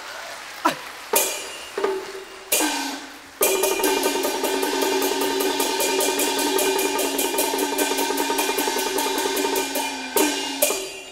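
Cantonese opera gong-and-cymbal percussion. A few single gong strikes ring out, each sinking in pitch. About three and a half seconds in, a fast, continuous gong-and-cymbal roll starts and runs for about seven seconds. Two final strikes close it near the end.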